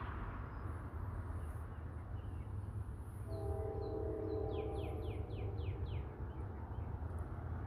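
Distant Norfolk Southern diesel locomotives working upgrade with a train, a steady low rumble. About three seconds in, the lead locomotive sounds its multi-chime air horn in one long blast of two to three seconds.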